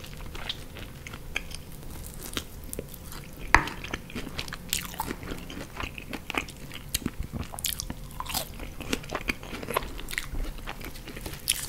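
Close-miked chewing and biting while eating chicken wings in sauce and French fries: many short sharp crunches and clicks, the loudest a third of the way in.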